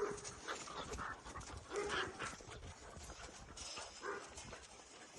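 A dog panting, with a few short whines.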